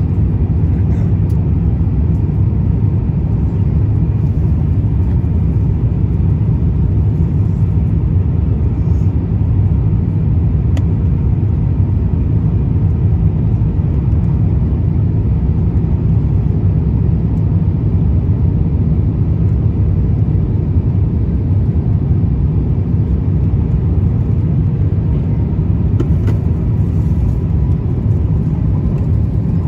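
Cabin noise inside an Airbus A350-1000 on descent: a steady low rumble of airflow and its Rolls-Royce Trent XWB engines through the fuselage, with a faint steady hum above it.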